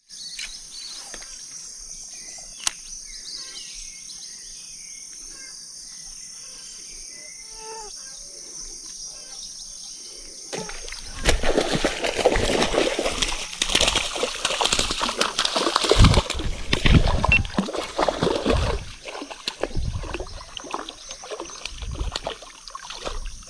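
Water splashing and sloshing, loud and irregular with low thumps, starting about ten seconds in: a hooked fish thrashing at the surface during the fight. Before it there is a steady high hiss and one sharp click.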